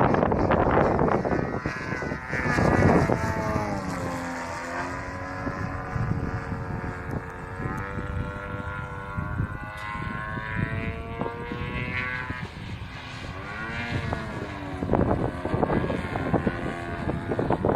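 Desert Aircraft DA70 twin-cylinder two-stroke petrol engine of a large RC aerobatic plane in flight, its propeller note falling as the throttle comes back about three seconds in, holding, then dipping and climbing again near the end as the throttle is opened.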